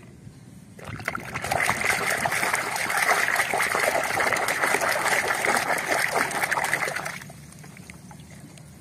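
Muddy water sloshing and splashing in a plastic tub as a toy is swished back and forth in it by hand to wash off the mud. It starts about a second in and stops abruptly about seven seconds in.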